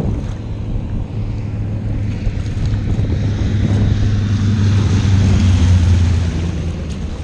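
Single-engine floatplane's propeller engine droning as it flies low past over the water, growing louder to a peak about five to six seconds in and then fading. Wind buffets the microphone throughout.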